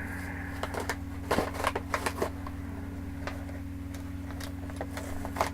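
Toy packaging being handled and pulled open by hand: a scatter of sharp clicks and crinkles, bunched about a second in and again near the end, over a steady low hum.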